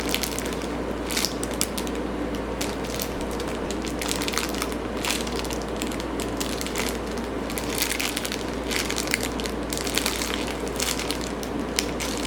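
Continuous crackling and crinkling of plastic being handled close to the microphone, a dense run of small crackles; typical of squishies in their plastic bags being picked up and shown.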